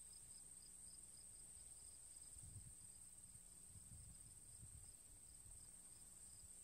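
Near silence: a faint steady high-pitched whine over a faint low hum, with some faint low rumbling in the middle.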